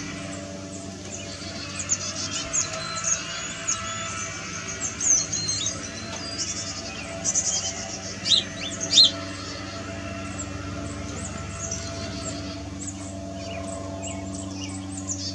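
Chickadees calling: a stream of short, high chirps, with a few louder calls about eight and nine seconds in.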